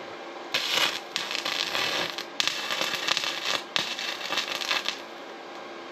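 MIG welder arc crackling and sputtering in three short bursts of about a second or two each, with brief breaks between them, as the trigger is pulled and released.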